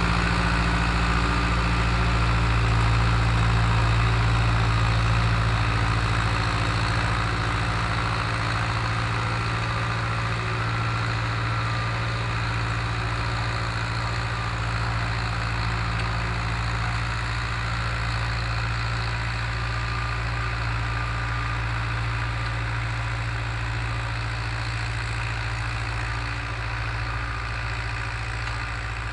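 Long 900 tractor's diesel engine running steadily while pulling a disk harrow through a field, growing slowly fainter.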